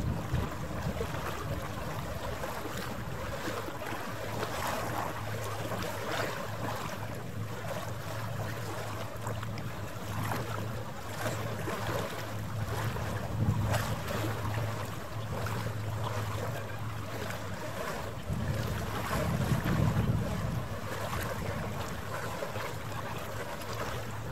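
Harbour ambience: a vessel's engine droning low and steady, with water noise and wind gusting on the microphone. The drone fades about three-quarters of the way through as the wind gusts pick up.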